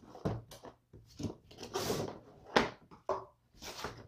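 Cardboard box being handled and lifted over a wooden table: irregular scraping and rubbing of cardboard with a few knocks, the sharpest about two and a half seconds in.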